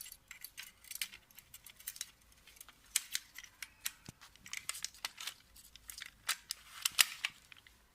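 Small metal parts of an electric gate lock clicking and scraping as the latch tongue is taken out and turned round to reverse the direction of its slope. Irregular light clicks, the sharpest about seven seconds in.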